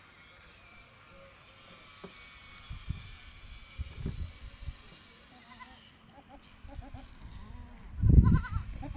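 Goats bleating: several short, wavering bleats in the second half. Low thumps come a few seconds in and again, loudest, about eight seconds in.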